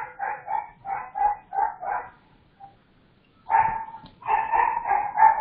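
A dog barking repeatedly, about three short barks a second, pausing briefly and then starting again about three and a half seconds in, picked up over a participant's open microphone on an online video call.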